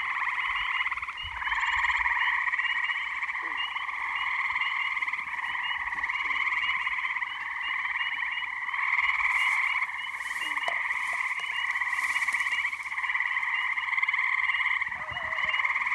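Gray tree frogs trilling: overlapping pulsed trills that run on almost without a break, dipping only briefly now and then.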